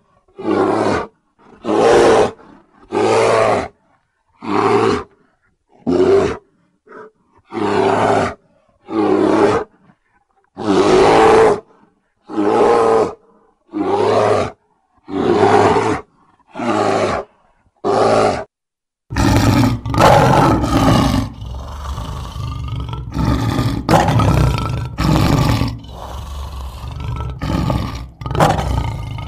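A brown bear roaring in short calls, each under a second long, about one a second for roughly the first eighteen seconds. From about nineteen seconds in come lions roaring and grunting, fuller and denser, with no gaps between the calls.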